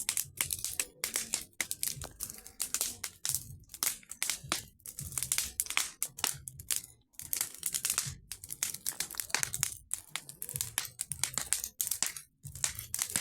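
Burning dry brush crackling and popping in quick, irregular bursts.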